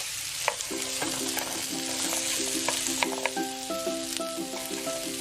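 Sliced onion sizzling in hot oil with garlic and ginger in a frying pan, stirred with a utensil that clicks against the pan now and then.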